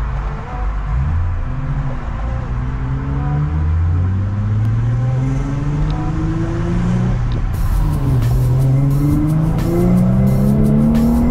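Infiniti G37 sedan's 3.7-litre V6 accelerating under manual shifting: the engine note climbs steadily in long pulls, drops sharply at an upshift past the middle, then climbs again.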